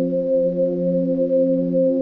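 Ambient film-score drone: several steady held tones layered together, with a slow wavering in their strength.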